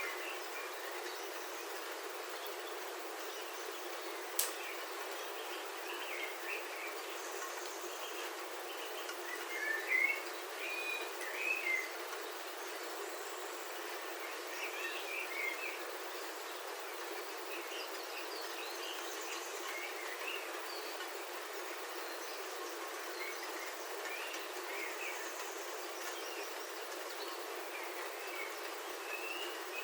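Steady rain on a roof heard from inside, with birds chirping outside in short scattered bursts, busiest about ten seconds in. One sharp tick about four seconds in.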